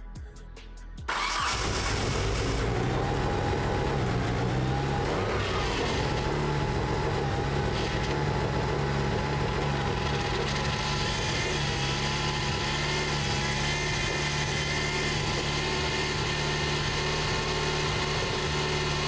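Mitsubishi Eclipse GSX's turbocharged 4G63T four-cylinder engine coming in about a second in and then running steadily at a fast cold-start idle, with one brief rise in revs about five seconds in. The owner puts the high idle down to racing camshafts.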